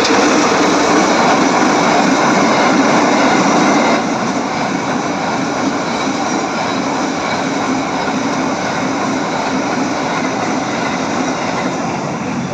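Loud rushing noise of a large bus driving past close by, its engine and tyres making a steady drone. The noise drops a little about four seconds in.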